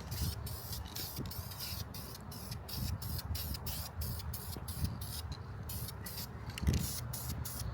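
Aerosol spray can of primer hissing in many short bursts with brief gaps between, over background music.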